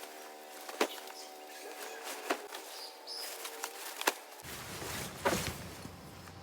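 Camping gear being handled during setup: four sharp knocks spread over several seconds, with rustling between them.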